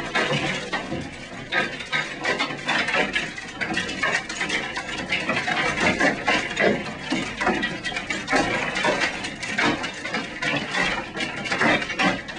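Large hailstones, golf-ball to baseball size, pounding a high-rise office building: a dense, unbroken clatter of hard impacts.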